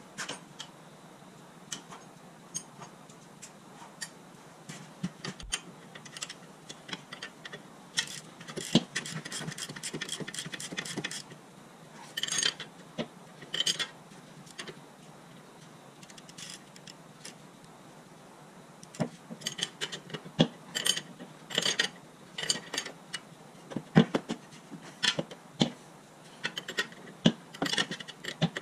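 Hand tools on a car's front suspension: metal clinks of wrenches and sockets, with runs of rapid ratchet clicking as a suspension nut is tightened while its stud is held with a 10 mm wrench.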